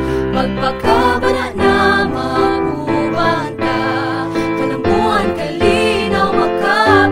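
The chorus of a Cebuano-language jingle, sung by several voices over an instrumental backing track.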